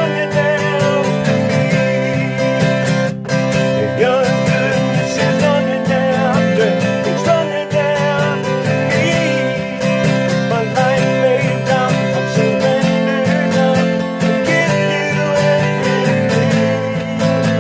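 A man singing while steadily strumming an acoustic guitar.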